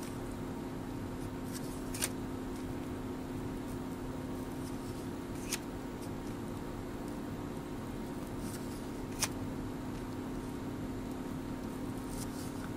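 1988 Donruss baseball cards being handled and moved one by one through a stack, with about three short, crisp card snaps spread a few seconds apart. A steady low hum runs underneath.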